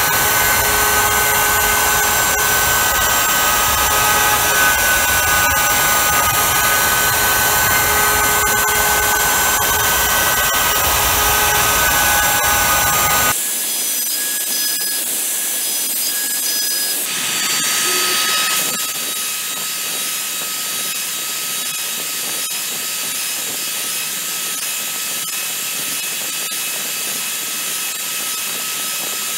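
Homemade CNC router spindle running with steady tones while its end mill cuts alder wood. About thirteen seconds in, the sound abruptly drops and loses its low rumble, then shifts again a few seconds later.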